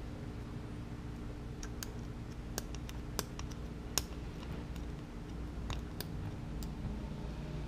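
Lock-picking gear being handled: scattered light clicks and ticks of small metal pieces knocking together, irregularly spaced, over a steady low hum.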